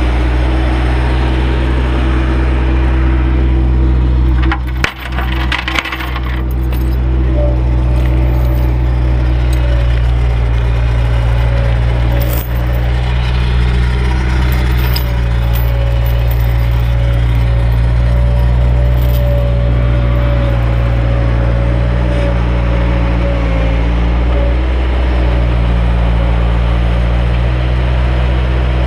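Skid-steer loader's diesel engine running steadily close by as it handles pine logs, with a brief clatter of wooden knocks about five seconds in and another single knock a little later.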